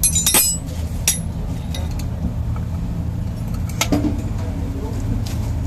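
Metal tools or parts clinking together: one ringing metallic clink at the start, then a few sharper single clicks, over a steady low rumble.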